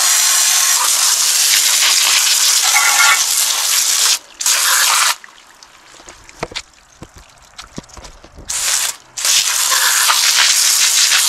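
Garden hose spray nozzle jetting water onto a Kawasaki lawn mower engine, rinsing off degreaser, a steady loud hiss. About five seconds in the spray stops for roughly three seconds, leaving only a few faint ticks, then starts again with a brief break just after.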